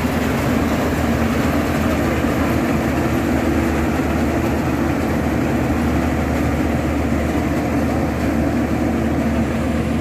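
WORLD crawler rice combine harvester running steadily under load as it cuts and threshes rice, its engine and threshing machinery giving a continuous, even drone.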